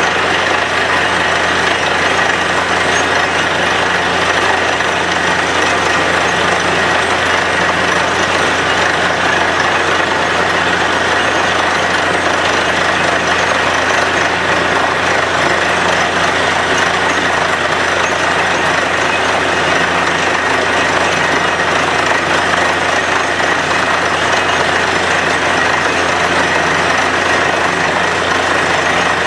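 Borewell drilling rig running steadily under load: the rig's engine and air compressor make a constant heavy drone, mixed with the rush of air and muddy water blowing up out of the bore.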